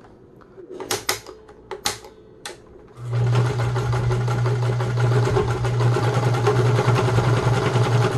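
A few sharp clicks, then about three seconds in the Meister 76 sewing machine starts and runs steadily with a low hum, sewing a wide zigzag stitch through eight layers of denim.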